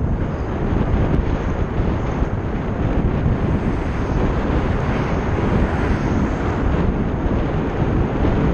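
Steady rush of wind over a vehicle-mounted camera's microphone, mixed with road noise, as the vehicle travels at road speed.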